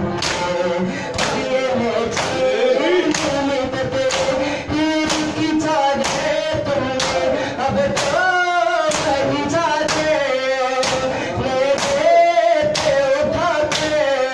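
Male voices singing a noha (a mourning lament) over rhythmic matam: hands striking chests in unison, about one and a half strikes a second.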